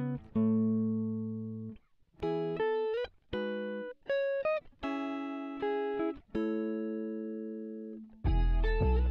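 Instrumental background music: a clean plucked guitar melody of separate notes and short chords, with bass and a fuller accompaniment coming in near the end.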